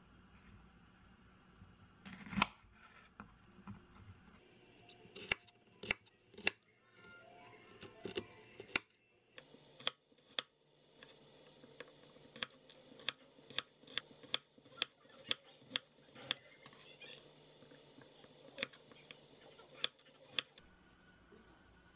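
Kitchen knife slicing onion and garlic cloves on a wooden cutting board, the blade knocking sharply on the board. The knocks come irregularly at first, then settle into a steady run of about two a second in the middle.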